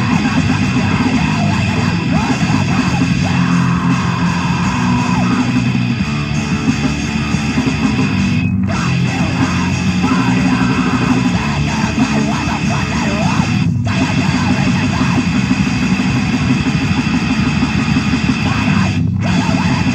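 Loud, distorted heavy band music, with guitar over a dense wall of sound and three short breaks in the high end.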